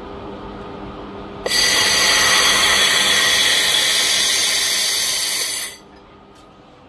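Handheld 1.5 kW fiber laser welding gun firing a weld: a loud steady hiss that starts suddenly, runs about four seconds and cuts off.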